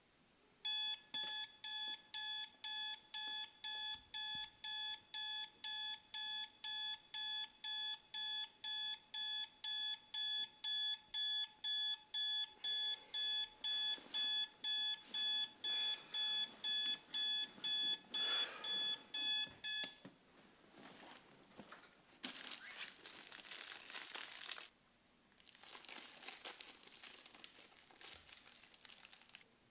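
Digital alarm clock beeping in a steady pulse of about two beeps a second, cutting off suddenly about twenty seconds in. After that, a plastic snack bag crinkles as it is torn open and handled.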